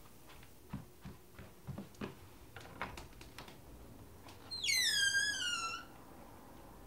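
A few soft thumps and clicks, then a door creaking open on its hinges for about a second, the creak sliding down in pitch.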